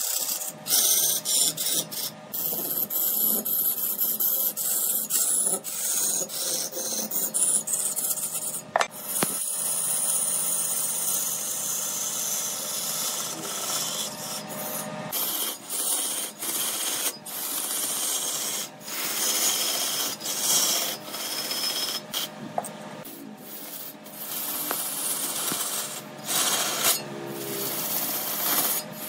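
A turning tool cutting and scraping red incense wood as it spins on a large wood lathe: a steady rasping hiss that breaks off briefly again and again.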